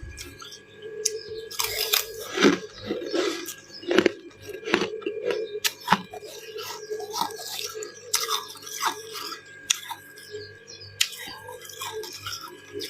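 Close-up crunching and chewing of ice and freezer frost: a run of irregular, sharp crunches as the ice is bitten and chewed.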